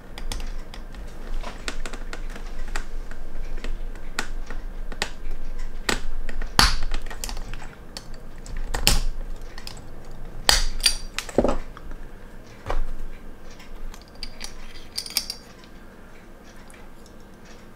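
A metal tool clicking and scraping against a stainless steel watch case as the case back is pried off, with light clinks from the steel bracelet. The clicks come irregularly and are loudest around the middle.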